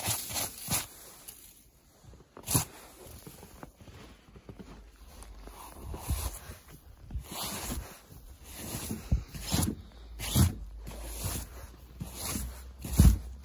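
Gloved hand sweeping fresh snow off a flat surface in short, irregular swishing strokes, with a low rumble on the microphone from about halfway through.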